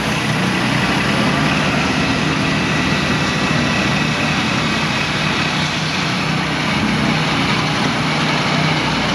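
Small gasoline engine of a Norwood Frontier OS-27 manual bandsaw mill running steadily between cuts, with the blade out of the log.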